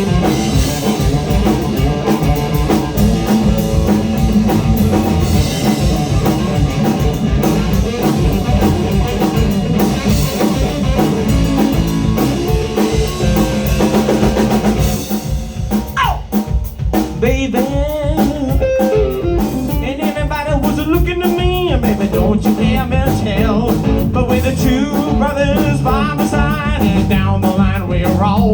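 Live blues-rock band playing: electric guitar, bass and drum kit. About halfway through the band thins out and a lead line with bent, wavering notes comes to the front.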